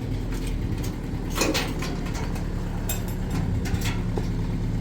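A vehicle engine running steadily, with a few short knocks and rattles over it, the loudest about a second and a half in.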